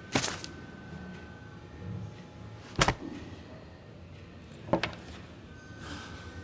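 Three sharp clacks of hard objects being handled, like a drawer or lid shutting: one just after the start, a louder one near the middle, and a third about two-thirds through.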